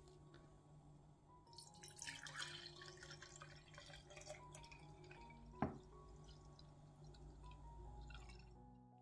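Milk poured in a thin stream into glass jars, a faint splashing trickle, with one sharp knock a little past halfway.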